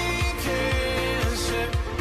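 Background pop music with a steady bass beat.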